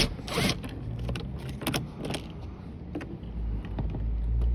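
Small metal clicks and rattles of a Torx T20 driver working out the grab-handle screws, with a low rumble starting about three seconds in.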